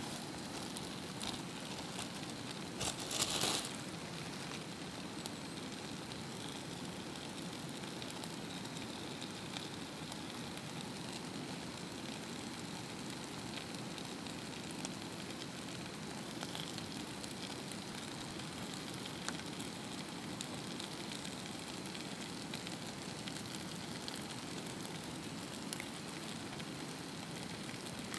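Steady rushing of a noisy river, an even wash of water noise, with a short louder burst of noise about three seconds in.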